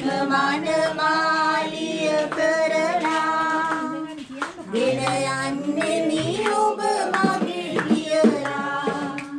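A group singing together, mostly women's voices, with hand claps among the singing.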